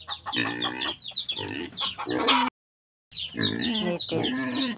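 A chicken clucking in quick repeated calls, cut off suddenly about halfway through. After a short silent gap, a young black pig grunts repeatedly while rooting. A steady high insect-like drone and small bird chirps sit behind them.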